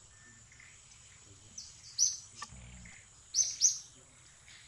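Short high-pitched bird chirps over faint forest background: one chirp about two seconds in, then two more in quick succession about a second and a half later.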